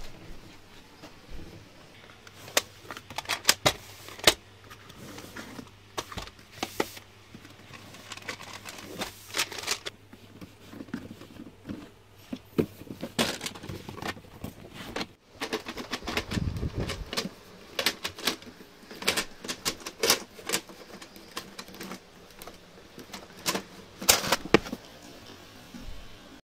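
Hard plastic cassette cases clattering: irregular sharp clicks and clacks as they are handled and knocked about, with one dull thud about sixteen seconds in.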